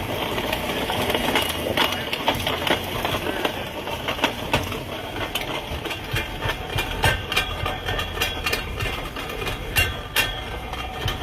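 Vehicle grinding noise: an irregular, continuous run of grinding clicks and scrapes over a low hum, from the front end of the car under diagnosis.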